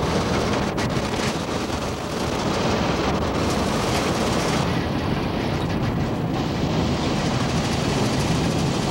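Steady drone of road and engine noise inside a moving vehicle's cabin, heard through a camcorder microphone.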